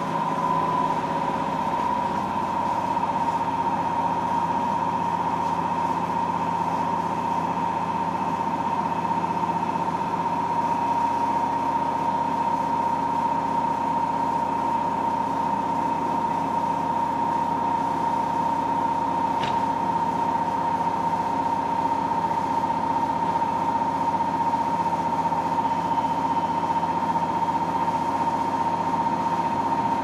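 Electric train car's onboard equipment humming steadily, with a steady high whine over it, and one faint click about two-thirds of the way through.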